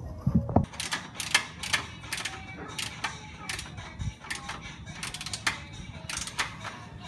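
Hand ratchet wrench clicking in short, uneven runs while bolts on an exhaust system are being turned from under the car.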